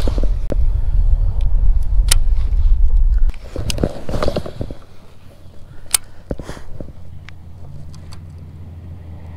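Wind rumbling on the microphone for about the first three seconds, then dying down, with scattered sharp clicks and knocks from a baitcasting rod and reel being handled.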